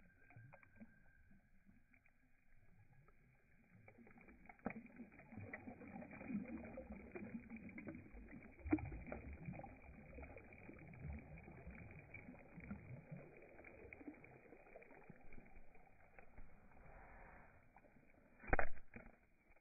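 Small waves lapping and washing onto a gravelly reservoir shore, an uneven splashing that comes in irregular swells and sounds dull and muffled. A single sharp knock sounds near the end.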